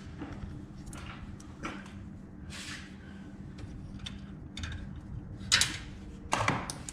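Scattered light clicks and knocks of metal parts and hardware being handled, with two sharper clanks about five and a half and six and a half seconds in, over a steady low hum.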